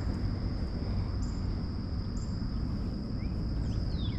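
Insects buzzing steadily at a high pitch over a low rumble, with a few short bird chirps near the end.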